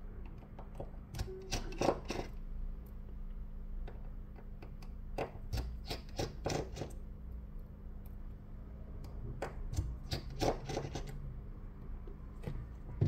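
Small clicks and taps of a precision screwdriver and tiny screws against a phone's metal frame, coming in a few short clusters as screws are backed out and set down. A steady low hum runs underneath.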